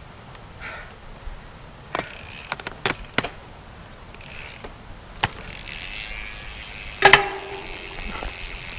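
A beer bottle being taken from a bike's Fidlock Twist bottle mount and opened after a trail ride: a string of sharp clicks and knocks, then a steady hiss of shaken beer foaming out from about halfway through. There is a loud sharp clink with a brief ringing tone near the end.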